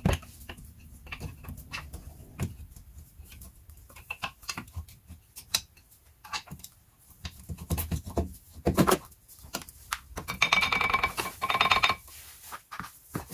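Front brake caliper of a Renault Trafic being worked off its carrier and disc by hand: scattered metal clicks and knocks, then a ringing metallic scrape and rattle for about two seconds near the end as it comes free.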